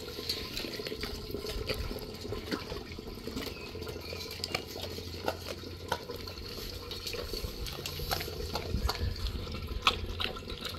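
Dogs licking and chewing raw meat in metal bowls: wet slurping mouth sounds broken by irregular sharp clicks.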